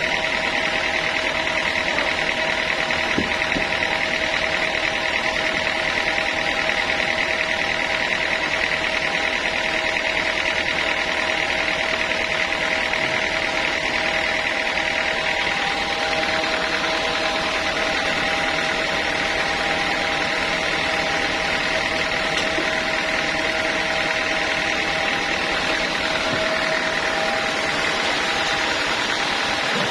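Sawmill circular saw machinery running steadily, a constant whine and hum that holds one pitch with no break.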